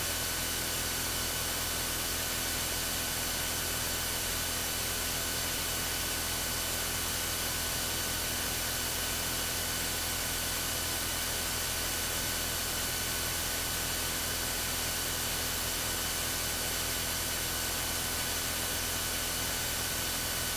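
Steady hiss of recording-system noise with a faint electrical hum and a few thin high whine tones, otherwise unchanging.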